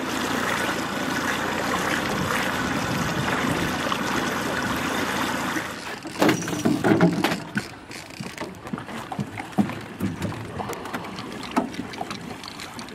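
Steady rush of wind and water from a boat moving across the lake. About six seconds in this gives way to a hooked lake trout thrashing and splashing at the surface, followed by scattered knocks and small splashes as it is brought to the landing net.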